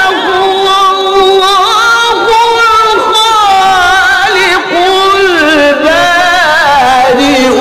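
A man's voice reciting the Qur'an in melodic tilawah style: long held notes ornamented with quick wavering runs that rise and fall.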